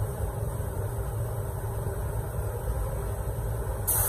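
A steady low rumble, then right at the end a sudden loud hiss as an Iwata gravity-feed spray gun (1.3 mm nozzle) is triggered and blasts a spray of mist from its nozzle.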